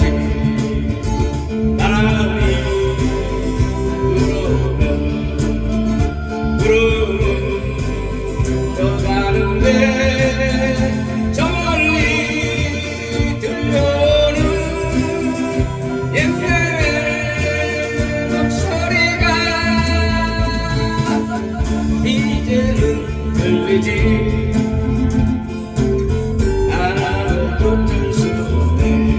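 A Korean ballad sung over guitar-led accompaniment, the voice holding long notes with a wavering vibrato.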